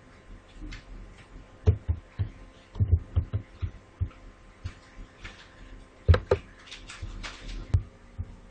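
Computer keyboard keystrokes and mouse clicks at an irregular pace, heard as sharp knocks and dull thumps, with a faint steady hum underneath.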